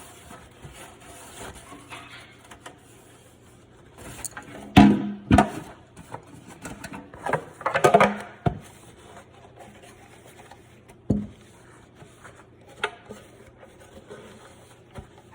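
Plastic refrigerator drawer piece being handled and wiped dry: soft rubbing with several sharp plastic knocks, the loudest about five and eight seconds in.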